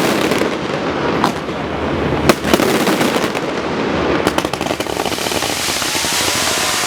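Aerial fireworks going off: a few sharp bangs of shells bursting over continuous crackling, and from about halfway in a dense hissing crackle.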